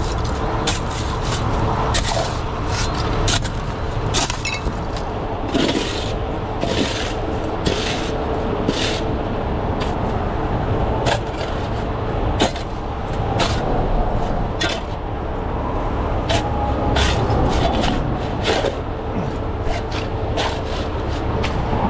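Heavy diesel rotator tow truck running steadily with a constant whine, under many sharp metal clanks and scrapes throughout.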